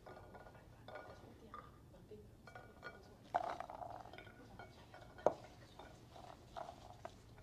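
Faint, scattered clinks and light clatter of a metal bowl and china plates being handled while pomegranate seeds are sprinkled by hand onto salad plates, with one sharp click a little past halfway.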